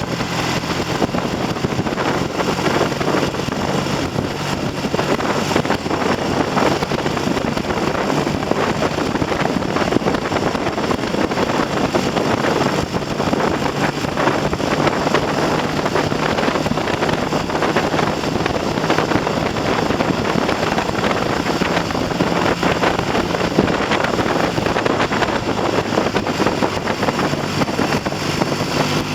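Heavy wind noise on the microphone of a moving Triumph TR6 motorcycle, with its parallel-twin engine running steadily underneath. The engine has a freshly rebuilt top end with new pistons and rings and is being run in gently.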